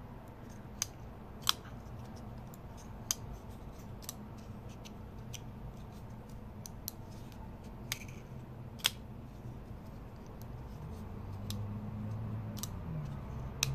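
Spyderco Para 3 folding knife worked open and shut by hand: a dozen or so sharp clicks at uneven intervals as the blade snaps open and closed and the compression lock engages.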